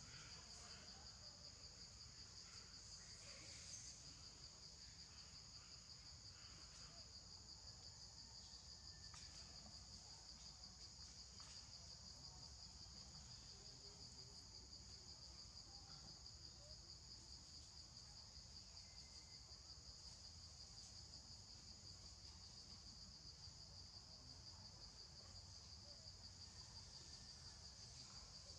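Faint, steady insect chorus: a high, unbroken trill at two pitches.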